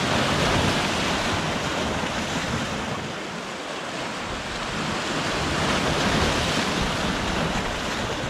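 Sea waves surging in and breaking over coastal rocks, washing and foaming steadily, with swells near the start and again about six seconds in.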